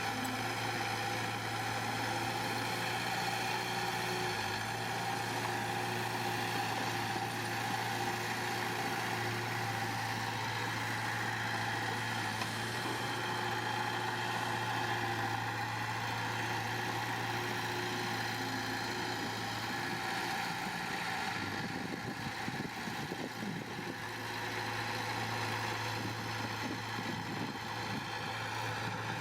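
Diesel engine of heavy construction machinery running steadily at a constant speed, with a brief change in its sound about three quarters of the way through.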